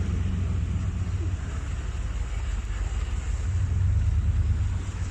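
A car driving along a flooded road, heard from inside the cabin: a steady low engine and road rumble with a hiss above it, swelling slightly around four seconds in.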